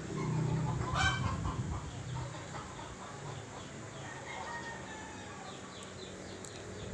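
Bird calls in the background, with a sharp call about a second in and fainter falling calls around four seconds in, over a low hum.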